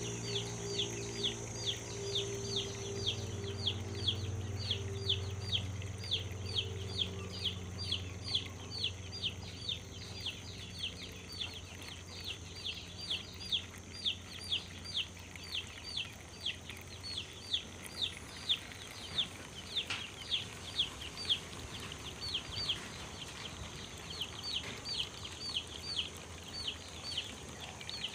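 Chicks peeping: a steady run of short, high, falling peeps, about two to three a second. A low hum fades out over the first several seconds.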